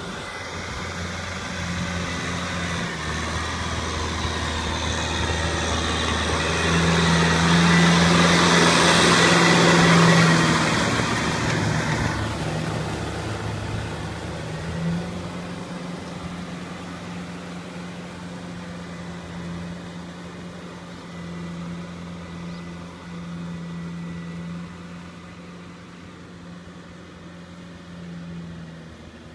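Tractor engine running steadily while it drives a rotary tiller through wet paddy soil. The hum and the churning noise swell to their loudest about a third of the way in, drop sharply soon after, then fade slowly.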